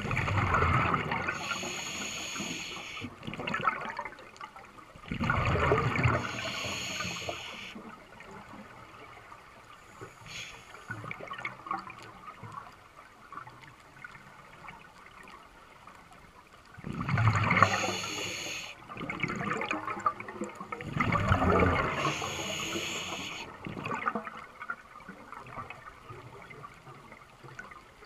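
Scuba regulator breathing heard underwater: four bursts of breath and bubbles, in two pairs about ten seconds apart, with quieter water noise in between.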